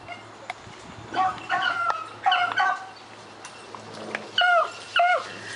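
A beagle bays on a rabbit's scent trail, giving several short bursts of high, yelping bays. The last two bursts, near the end, are the loudest.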